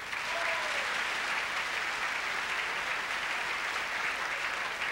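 Audience applauding steadily, a dense crowd of many people clapping.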